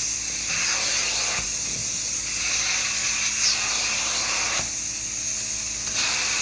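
Upholstery extraction cleaner's vacuum hissing steadily through a handheld upholstery tool drawn over fabric cushions, its tone dulling and brightening a few times as the tool is worked across the couch.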